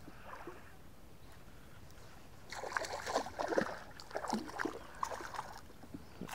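Water splashing in short, irregular bursts from about two and a half seconds in: a hooked pike thrashing at the surface beside a small plastic boat.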